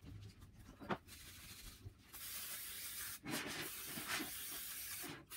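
Aerosol cooking spray hissing as it greases a metal baking pan: one spray of about a second, a brief break, then a longer spray of about two seconds, after a light knock about a second in.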